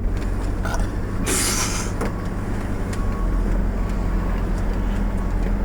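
Ford 460 V8 of a 1986 F-350 running steadily at low speed, a constant low hum. A short hiss, about a second long, cuts in about a second and a half in.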